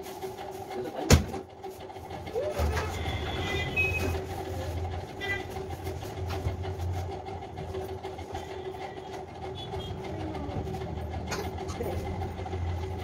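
A steady mechanical hum with a low rumble that sets in a few seconds in, and a single sharp click about a second in.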